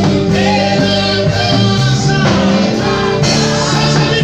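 Christian worship song with singing over a rock band of guitar and drums, loud and continuous.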